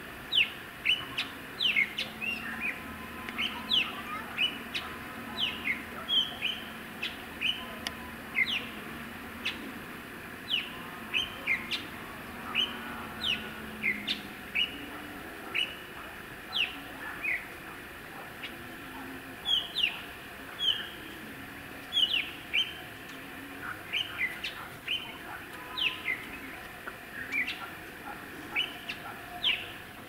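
Wild birds calling: a steady run of short, sharply falling chirps, one or two a second, over a constant outdoor background.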